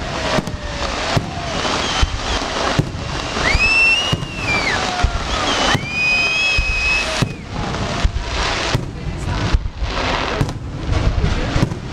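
Fireworks display: a rapid run of bangs over continuous crackling, with two whistling fireworks in the middle, one rising and falling, the next held at one high pitch for about a second.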